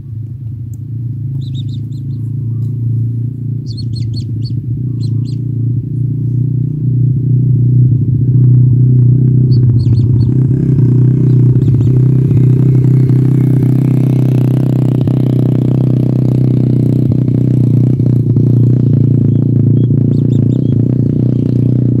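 A steady low engine-like drone swells over the first eight seconds and then holds, the loudest thing throughout. Short high chirps from the kingfisher nestlings come in a few brief clusters over it.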